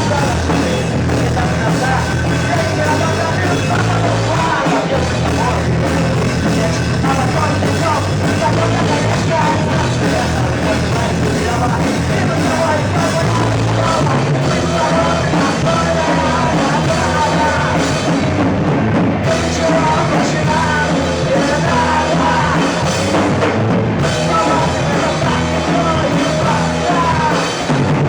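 Live rock band playing loud: drum kit, bass and electric guitars in a full, continuous mix.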